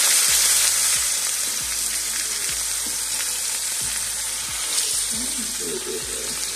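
Seasoned chicken breasts sizzling as they fry in hot oil in a nonstick frying pan, a steady hiss, with a few light clicks of metal tongs against the pan as pieces are laid in and turned.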